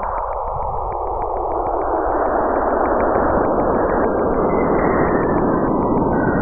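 Saturn's radio emissions recorded by Cassini and converted into audible sound: a dense hiss that swells louder and climbs in pitch, with a rapid, even train of clicks running through it.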